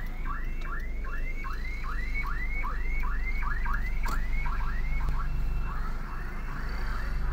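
An electronic alarm chirping over and over, each chirp a quick rise in pitch, about three a second, stopping about five seconds in. Beneath it runs the steady low rumble of the vehicle, heard from inside the cab.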